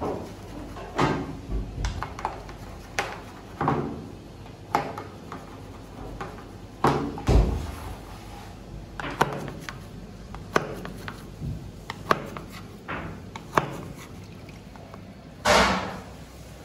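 Knife cutting rolled pistachio baklava in an aluminium tray: a run of irregular knocks and clicks as the blade goes through the raw pastry and strikes the tray. A louder, longer rush of sound comes near the end.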